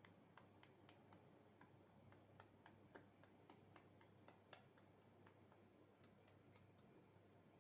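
Faint, irregular sharp clicks and pops, a few each second, over a low steady hum.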